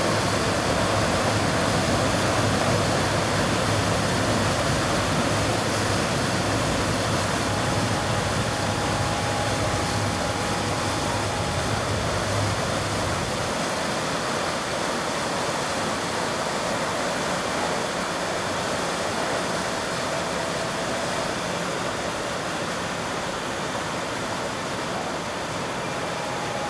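Water from a holding tank gushing at full force out of a large outlet gate into a water-ride channel, churning in a steady, loud rush as the ride refills. A deep rumble underneath drops away about halfway through.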